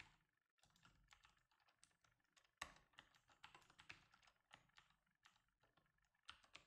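Computer keyboard typing: a run of faint, irregular key clicks, with one sharper keystroke about two and a half seconds in.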